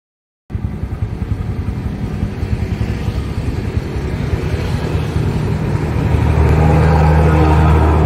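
Motorcycle engine running with a fast, even low pulsing that grows louder, settling into a steadier hum about six seconds in.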